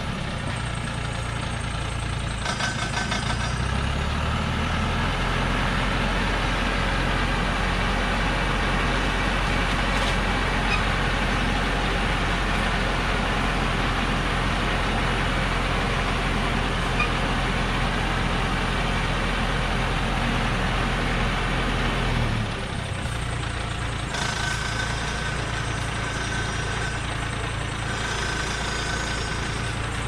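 Diesel engine of a loaded logging truck running steadily at idle. Its low drone drops away about three-quarters of the way through, leaving a quieter running sound.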